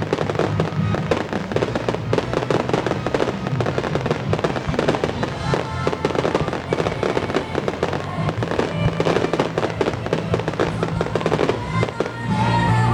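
Fireworks finale: a dense, rapid barrage of shells bursting and crackling, with music playing underneath.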